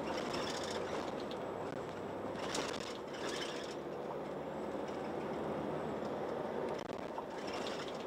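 City bus in motion, heard from inside: a steady engine hum and road noise, with brief rattling of the body and fittings about two and a half to three and a half seconds in.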